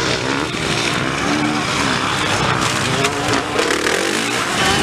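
Several motocross dirt bikes running on a dirt track, their engines revving up and down in overlapping waves as riders accelerate and back off.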